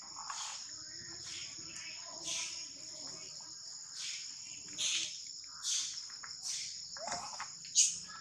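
Steady, high-pitched drone of insects, with short rasping bursts repeating about once a second.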